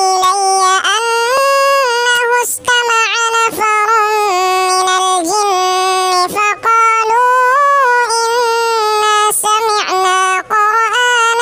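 A child's voice reciting the Qur'an in a melodic chanting style (tilawat), drawing out long held notes that bend between pitches, with short breaks between phrases.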